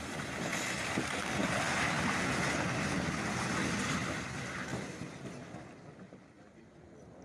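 A house collapsing under a lava flow: a loud rushing rumble that swells in the first second, holds, and then fades away over the last few seconds.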